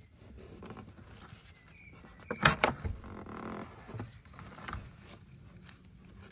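A rag wiping and rubbing around the oily threaded sphere seat on a Citroën DS rear suspension arm. There are two sharp knocks against metal about two and a half seconds in, followed by a few lighter ones.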